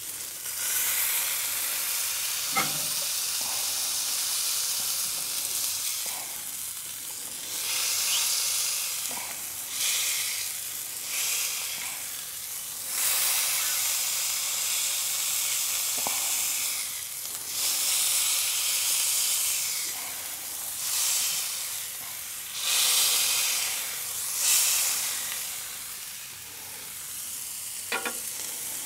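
Ground-beef smash burgers sizzling on a hot soapstone griddle as they are pressed flat with a steel spatula. The high hiss of the sizzle rises and falls in waves.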